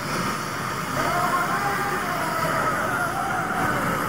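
Helicopter running on the ground with its rotors turning: a steady rushing engine and rotor noise, with a crowd's voices wavering over it.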